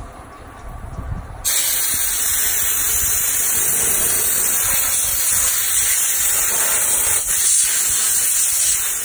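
Compressed-air blow gun hissing loudly and steadily, blowing coolant off freshly machined steel knife blanks. It starts abruptly about a second and a half in and cuts off sharply near the end.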